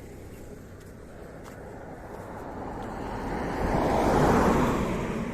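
A vehicle passing by: a rushing noise that builds up, peaks about four seconds in, then fades.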